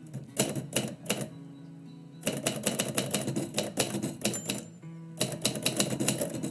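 Typewriter keys striking in quick runs: a few strikes in the first second, a fast clatter from about two seconds in, a brief pause, then another run near the end. Background music plays underneath.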